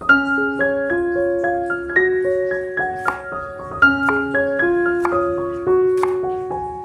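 Background piano music: a light melody of single struck notes over longer-held lower notes, the phrase starting over a little under four seconds in.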